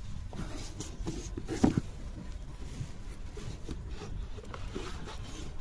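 Close handling noise: rubbing and scraping with small clicks, and one sharper knock about a second and a half in.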